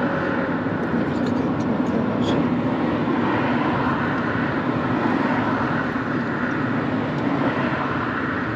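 Steady engine and tyre noise of a Mercedes-Benz W124 cruising along a road, heard from inside the cabin.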